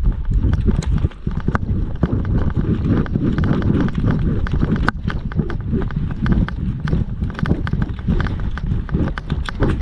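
Footsteps of a person running, a fast irregular run of heavy thuds and clatter close to the microphone.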